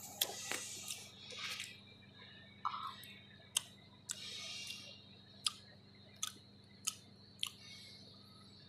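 A person chewing green banana with chilli paste, with short sharp mouth clicks about every second.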